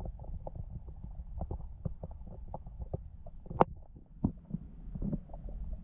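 Underwater ambience picked up by a submerged camera: a muffled low rumble with scattered small clicks and ticks, and one sharp click about three and a half seconds in.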